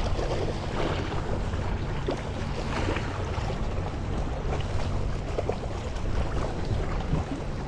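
Wind buffeting the microphone over lapping seawater, with a few brief splashes from a hooked kingfish thrashing at the surface.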